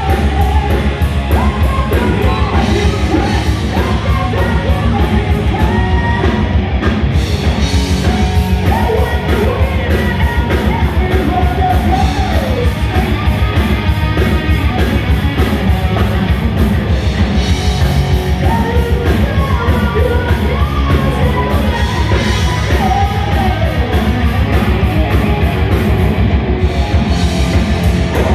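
A heavy metal band playing live and loud: distorted electric guitars, bass and drums drive a fast, steady beat, with a melodic line winding over the top.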